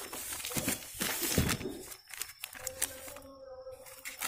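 Plastic courier mailer bag rustling and crinkling as it is cut open with scissors and handled, loudest about a second in, then quieter handling.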